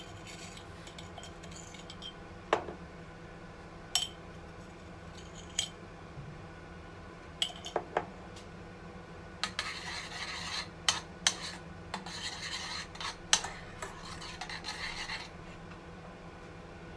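A small metal spoon clinks several times against a glass salt jar. Then come a few seconds of spoon scraping with more clinks as salt is taken out and stirred into a saucepan of carrot purée.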